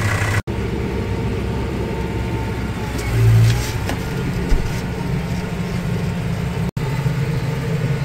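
Tractor engine running steadily while driving, heard from inside the cab, with a brief swell about three seconds in. The sound drops out for an instant twice.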